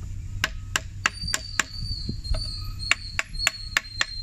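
An old rusty hammer tapping broken staple remnants down into a wooden kayak seat frame: about a dozen sharp, quick strikes, roughly three a second. A thin high ring sounds under the later strikes.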